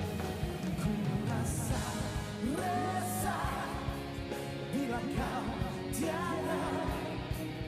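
Rock band music with a male lead vocal singing gliding, held notes over guitars, bass and drums.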